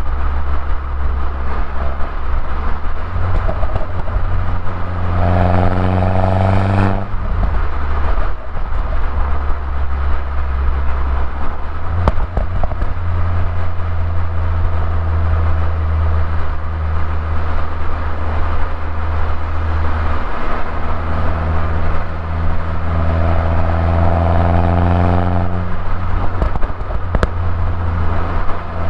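2011 Mini Cooper S R56's turbocharged 1.6-litre four-cylinder on the stock exhaust, pulling under acceleration. The engine note climbs twice and drops sharply at each upshift, cruising steadily in between.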